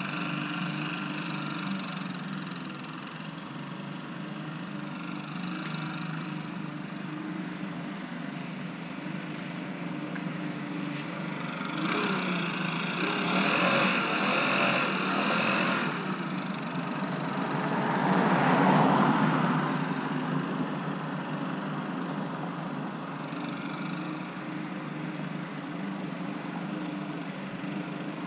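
Leaf blower engine running steadily at a distance, growing louder twice in the middle.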